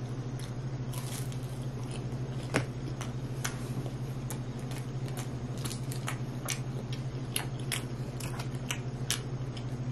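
Chewing with scattered small, irregular clicks as a plastic dipping-sauce cup is handled and its lid peeled open, over a steady low hum.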